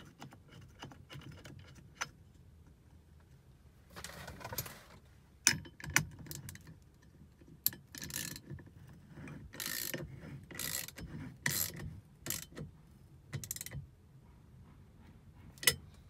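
Socket and ratchet wrench tightening the steering-column nut that holds an NRG steering-wheel hub: sharp metal clinks, then from about eight seconds in a run of short ratcheting strokes about a second apart.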